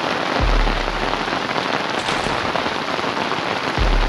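Heavy rain pouring down onto a flooded street, a dense steady hiss, with two brief low rumbles: one about half a second in and one near the end.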